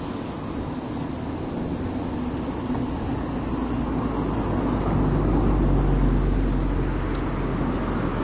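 Low rumble of a passing train, swelling with a steady low hum about five seconds in and then easing off.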